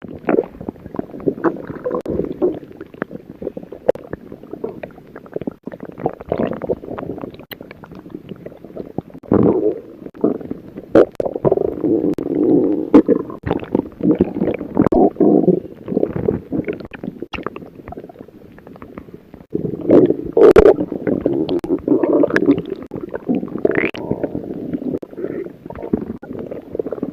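Stomach growling and gurgling in bouts that swell and fade, louder around the middle and again in the last third.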